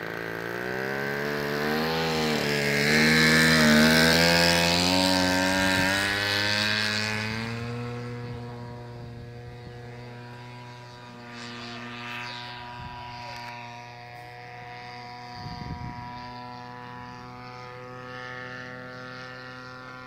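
Radio-controlled model airplane's engine and propeller at full power on its takeoff run and climb-out. The pitch wavers while it is loudest, about three to four seconds in, then holds steady and grows fainter as the plane climbs away.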